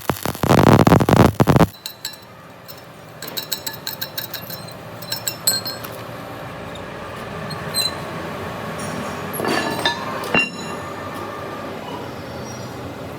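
Metal parts clinking and ringing in a steel workshop, over a steady machine hum. A loud burst of noise opens the sound, and a short metallic squeal comes near the end.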